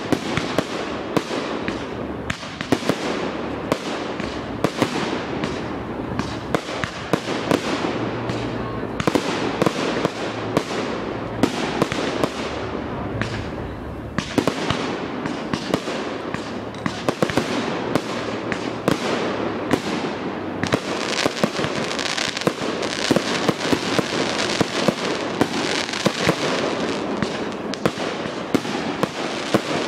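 Large fireworks display: shells bursting in rapid, overlapping bangs and crackles with no pause. The bursts get denser and brighter in the second half.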